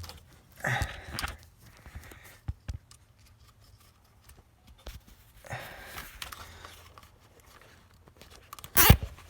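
Plastic zip tie being pulled tight around a bundle of loose wires: short ratcheting rasps and rustling handling noise, with a sharper, louder rasp near the end.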